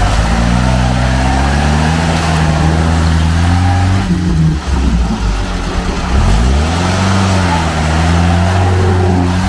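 UAZ 469's engine revving hard under load as it climbs a muddy bank out of a swamp on 36-inch tractor tyres. The revs climb, fall away briefly about halfway through, then rise again and hold high.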